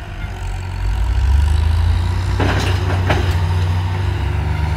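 Heavy diesel engine revving up about a second in and held high under load, as the bogged, sand-loaded truck is worked free. A short hissing rush comes near the middle.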